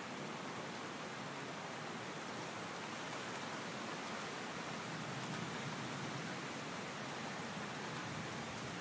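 Thunderstorm noise: a steady rush of rain falling and wind through the trees, with no single sound standing out.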